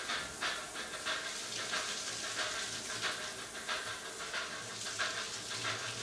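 Music: a samba-reggae drum ensemble playing a fast, even beat of about four strokes a second over a hissing shuffle, the drum intro of the song.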